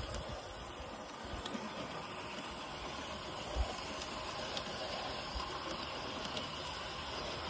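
Garden-railway train running on its track: a steady rolling hiss with a few faint clicks, and one low thump about three and a half seconds in.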